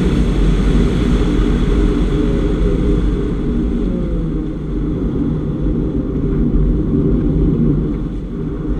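2015 Porsche Boxster's flat-six engine pulling hard at high track speed, heard inside the cabin with road and wind noise. The sound eases slightly near the end as the car turns off the oval.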